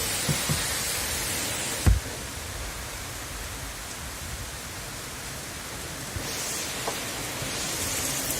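Heavy rain in a storm, a steady hiss that eases a little after about two seconds and builds again near the end. There is one short, loud thump about two seconds in.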